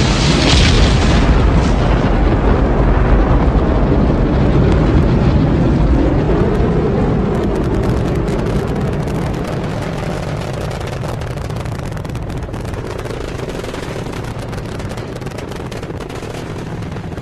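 Rocket launch roar: a deep rumbling roar full of crackle, loudest at the start and slowly fading, with the sharp crackling standing out more in the second half.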